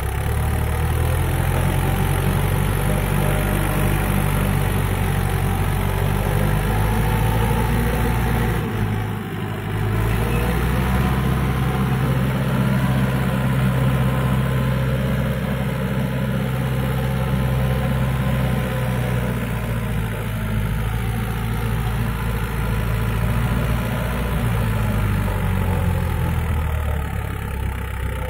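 Mahindra 415 DI tractor's four-cylinder diesel engine idling steadily close by. Its speed wavers slightly now and then, and it dips briefly about nine seconds in.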